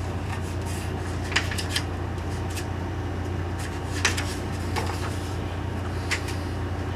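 A few short rustles and soft clicks of a hardback picture book's pages being handled and turned, over a steady low hum.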